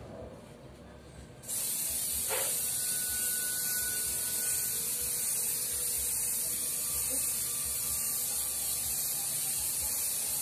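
Aerosol can of Bosny clear spray paint hissing steadily as it sprays, starting suddenly about a second and a half in.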